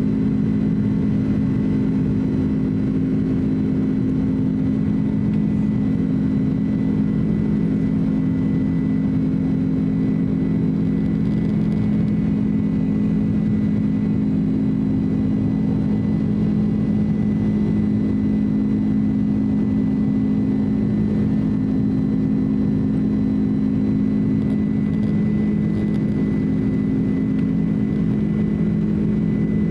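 Cabin noise of a Boeing 767-300 in the climb after takeoff: the turbofan engines' steady drone, a strong low hum with a thin, steady high whine above it, heard from a seat beside the engine.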